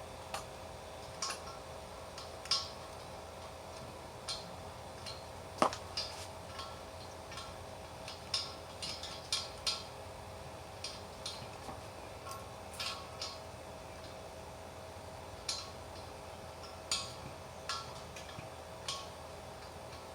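Charcoal fire crackling as it catches: irregular sharp pops and ticks, one or two a second, with a louder pop about five and a half seconds in, over a steady low hum.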